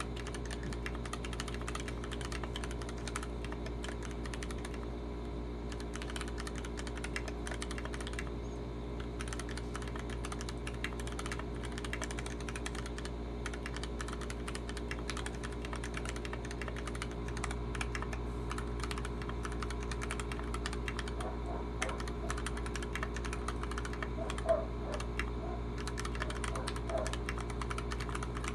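Continuous typing on a custom 60% mechanical keyboard: stock Gateron Milky Yellow linear switches on a polycarbonate plate, in an aluminium Tofu60 case with PBT keycaps and foam dampening. The keystrokes come rapidly with a few brief pauses, over a steady low hum, with one louder key strike near the end.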